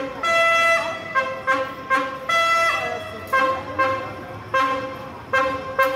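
Diesel locomotive's horn sounding a rhythmic run of about ten toots, mostly short with two longer blasts, switching between two different chords.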